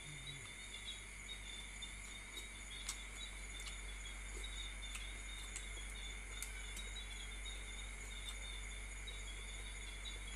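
Steady chirring of insects in the background, with scattered small clicks of chopsticks and a spoon against a plastic tray as noodles are eaten.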